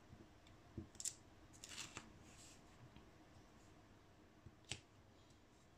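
Faint clicks of a diamond painting pen picking up resin drills from a plastic tray and pressing them onto the adhesive canvas, with a brief soft rustle about two seconds in and a sharper click a little before the end.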